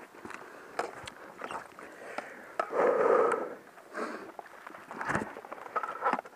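Rustling and scraping of a player moving on foot through forest undergrowth, with scattered sharp clicks and knocks of gear and camera handling. A louder rustle comes about three seconds in.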